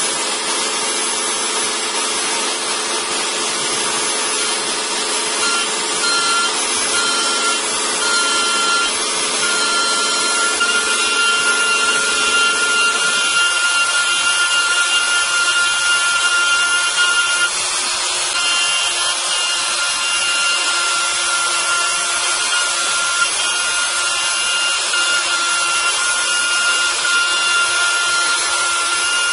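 Kress high-speed router motor on a robot arm, spinning a small cutter as it mills into a block. It makes a steady high whine over a hissing cutting noise, and a lower hum drops away about halfway through.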